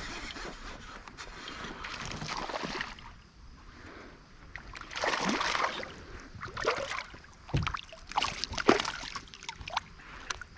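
Water splashing and sloshing around a kayak, in several short bursts that grow busier in the second half.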